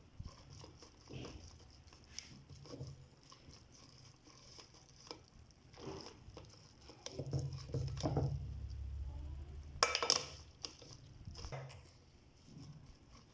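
Grated potatoes being strained: water pattering and dripping off them into a bowl, with scattered small knocks of the strainer and bowl and a louder clatter about ten seconds in.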